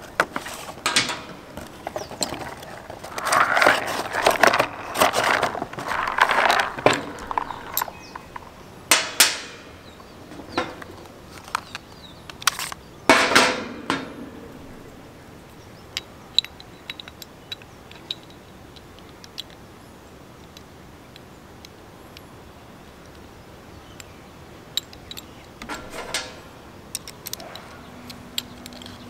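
Hands handling an airsoft CO2 Desert Eagle pistol kit: a cardboard box rustling and being shifted, with clicks and clinks of small metal parts (cleaning rod, hex key, magazine). The rustling is busiest in the first few seconds, with two louder rushes of noise near 9 and 13 seconds, then only scattered sharp clicks as a small CO2 cartridge is fitted into the magazine.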